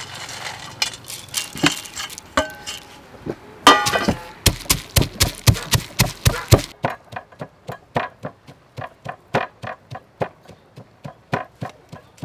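A stone pestle pounding peanuts in a stone mortar. After a few scattered knocks and clinks, it settles about four seconds in into a steady run of sharp strikes, about four a second.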